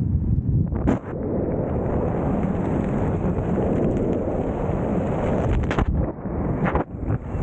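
Wind buffeting the camera's microphone during a parachute descent: a steady low rumble, with brief sharp crackling gusts about a second in and again near the end.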